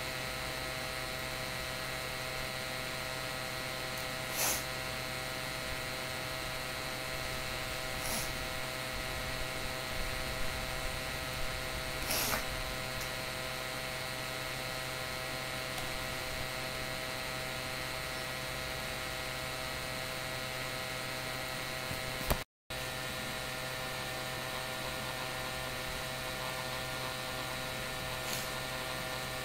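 Steady electrical hum with several high, even tones, broken by a few faint ticks of a wooden stick stirring inside a small plastic lotion bottle. The sound cuts out for a split second about two-thirds of the way in.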